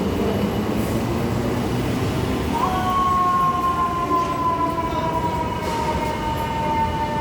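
Subway train running through the station with a steady rumble; about two and a half seconds in, a high metal-on-metal squeal from its wheels starts and holds, sliding slowly down in pitch.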